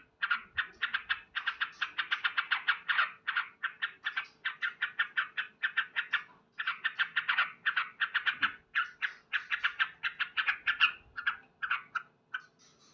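Male yellow-vented bulbul (trucukan) calling: fast runs of short, sharp notes, several a second, in bursts with brief gaps.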